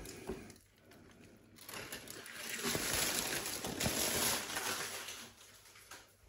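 Aluminium foil crinkling and rustling as it is handled and moved, with soft handling of slow-cooked brisket on a wooden chopping board, for a few seconds from about two seconds in.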